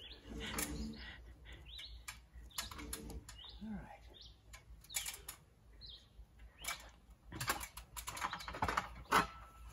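Scattered light knocks and clicks at an irregular pace, with a few short bird chirps in between.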